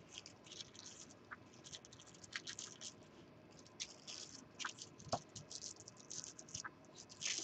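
Gold craft foil crinkling and rustling faintly under the fingertips as it is pressed and rubbed onto tacky glue, in short scattered crackles with a few small clicks.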